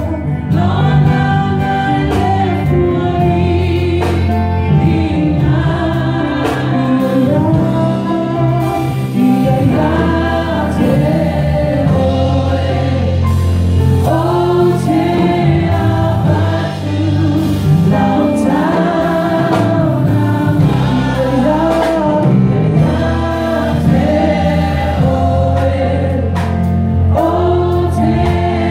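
A choir of women and girls singing together in many voices, a sacred song sung at full voice.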